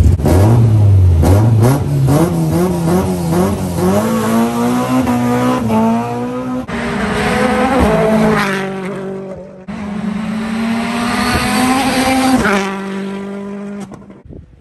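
Rally car engines at full throttle, climbing in pitch through the gears with short dips at each shift, in three passes that cut abruptly one into the next. The last one fades away near the end.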